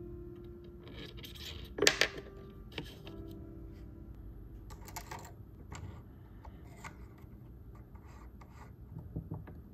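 Small steel watchmaker's-lathe collets clinking and rubbing as they are handled in their wooden case, with a sharp metallic clatter about two seconds in, then scattered light clicks as a collet is fitted into the lathe.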